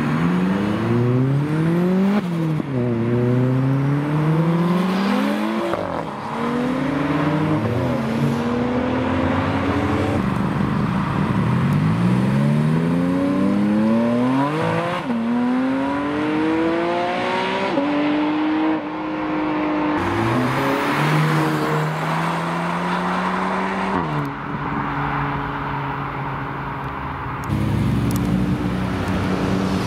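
Performance cars accelerating hard past one after another, among them a Porsche 718 Cayman GT4 RS. The engine notes climb in pitch and drop sharply at each upshift, many times over.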